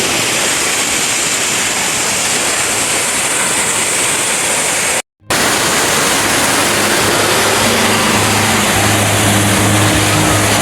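Waterfall rushing: a steady, loud, even roar of falling water. It cuts out for a split second about five seconds in, and faint background music comes in during the second half.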